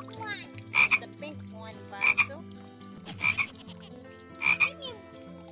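A frog calling: four short croaks, evenly spaced about a second and a quarter apart.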